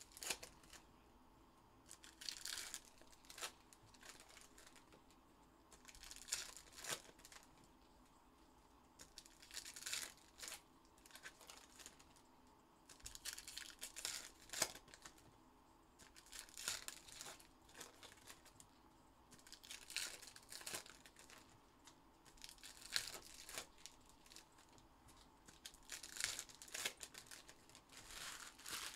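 Foil packs of Panini Contenders football trading cards being torn open and crinkled, one after another, with a short crackly burst every three to four seconds.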